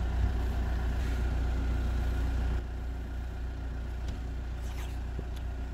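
Steady low hum of an idling engine, dropping a little in level about two and a half seconds in.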